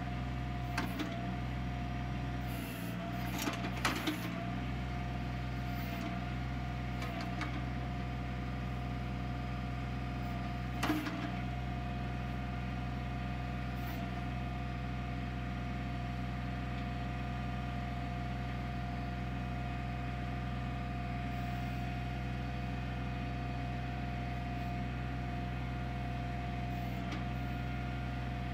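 Kioti CK25 compact tractor's diesel engine running at a steady speed, with a few short knocks about a second in, around three to four seconds and near eleven seconds.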